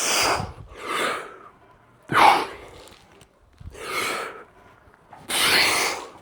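A man's heavy, forceful breathing while working through kettlebell reps: five sharp breaths, roughly a second or more apart.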